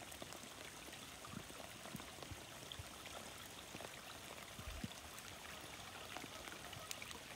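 Faint, steady hiss of water with scattered small ticks of drops.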